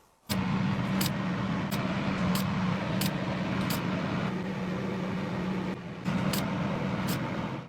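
A motor running with a steady hum and a sharp click about every two-thirds of a second, dipping briefly near the end; it starts and stops abruptly.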